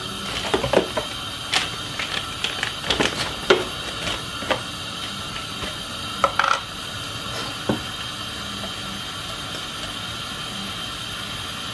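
Shredded cabbage and mixed vegetables sizzling in an uncovered frying pan, a steady hiss broken by scattered clicks and taps, most of them in the first few seconds.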